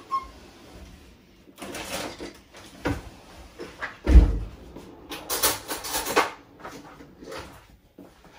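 Kitchen handling noises while tomato paste is fetched: rustling and clicks, with a loud thump about four seconds in and more rustling after it.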